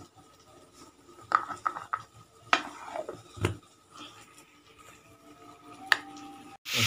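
Several light clicks and knocks as the plastic lid of a steel mixer-grinder jar is handled and pressed into place, with a faint steady hum underneath.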